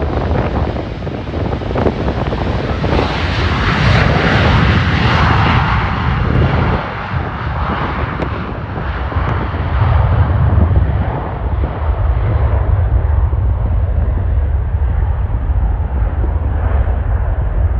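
Jet airliner's engines passing close by, loudest a few seconds in; then the high hiss fades away and a low rumble remains.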